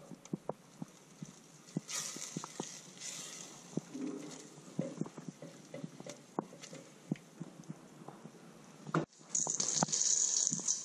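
Silicone spatula stirring a thick melted peanut butter mixture in a stainless steel saucepan, with soft scattered taps against the pan. About nine seconds in it changes to a spatula mixing chocolate chips and shredded coconut in a stainless steel bowl: a louder, hissy scraping with small ticks.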